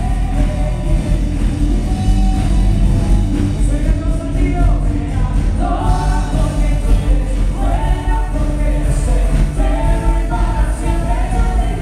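Live worship band playing a Spanish-language worship song: electric guitar, keyboard and a full band under sung lead and backing vocals, steady and loud.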